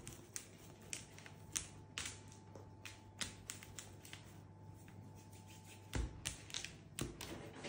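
Faint, irregular taps and clicks of hands and fingernails working bread dough on a stone countertop, shaping pieces into buns, over a low steady hum.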